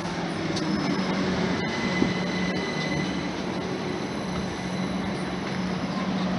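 Class 379 Electrostar electric multiple unit running past alongside the platform: steady rumble of wheels on rail with a steady low hum underneath.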